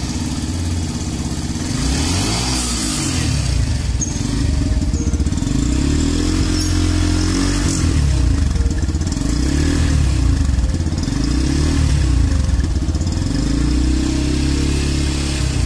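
Yamaha FZ-S V3.0's 149 cc single-cylinder engine running at the exhaust and being revved again and again, its note rising and falling about six times between idle.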